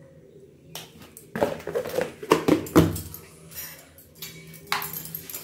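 A steel spoon clinking and knocking against a stainless-steel bowl of marinated chicken, a quick run of clinks and knocks lasting about two seconds, followed by a few fainter taps.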